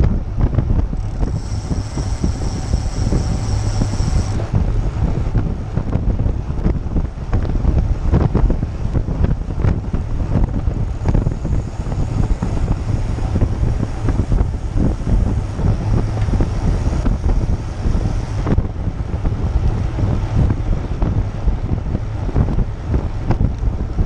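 Wind buffeting a GoPro action camera's microphone mounted on a moving road bike: a loud, steady low rumble of wind and road noise at riding speed. A faint high-pitched whine comes in about a second in and again in the middle.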